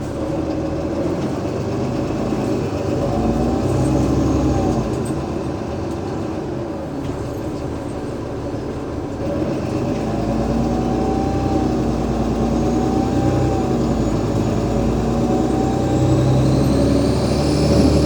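Cummins ISL 8.9-litre diesel engine and ZF Ecolife six-speed automatic gearbox of an Alexander Dennis Enviro500 MMC double-deck bus under way, engine note swelling and easing with the bus's pace and picking up from about ten seconds in. A wavering tone rises and falls every second or two over it, and a high whine climbs near the end.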